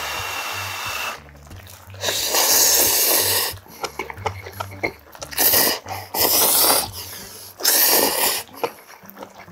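Ramyeon noodles from budae jjigae being slurped up by mouth, about five long slurps in a row with short pauses between them.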